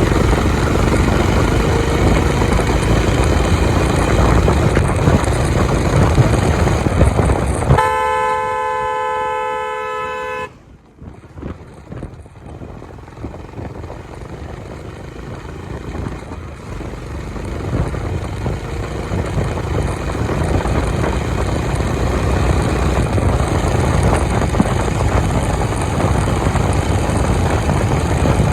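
Honda CB350 motorcycle at highway speed, its engine noise mixed with heavy wind rush. About eight seconds in a vehicle horn sounds for about two and a half seconds; then the level drops suddenly and builds back up over several seconds as the bike slows and gets going again.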